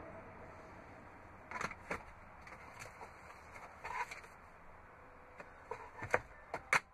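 A series of short plastic clicks and knocks from a pickup truck's dashboard glove box as it is opened and its lid handled, with the sharpest two close together near the end.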